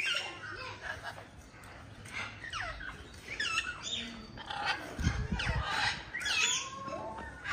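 Birds calling: a steady string of short calls that rise and fall in pitch, several overlapping. A few low thuds come about five seconds in.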